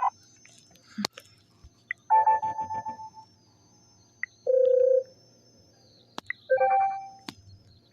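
Sony Xperia L4's built-in alert tones played one after another through the phone's speaker: a short multi-note chime, a single steady beep, then another short chime, with a few sharp clicks in between.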